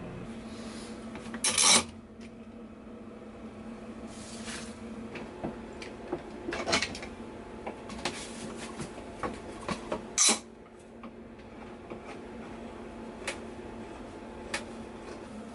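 Hand tool scraping and rubbing along the edge of a wooden board. There are two short, louder strokes, one about a second and a half in and one about ten seconds in, among lighter scrapes and taps.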